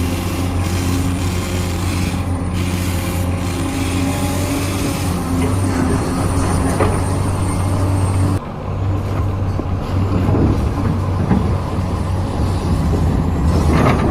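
Radio-controlled model construction machine running: a steady mechanical drone with motor and gear whine. The sound shifts abruptly about eight seconds in, then runs on.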